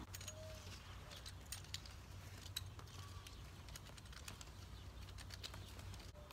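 Hand stirrup hoe scraping and chopping into dry garden soil: a faint, irregular run of light scrapes and ticks over a steady low hum.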